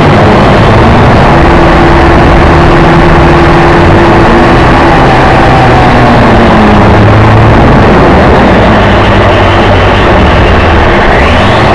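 Loud, distorted rush of wind buffeting a small onboard camera's microphone while it flies through the air, with faint pitched tones drifting in and out.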